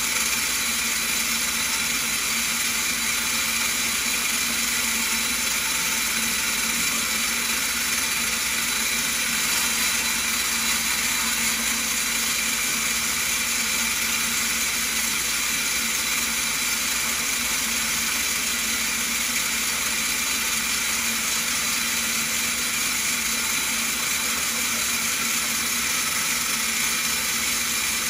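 Stone bead milling machine running steadily: its motor spins the grooved disc while rough stone bead blanks roll and grind against it in the water-fed bowl, an even mechanical whirr with a grinding hiss.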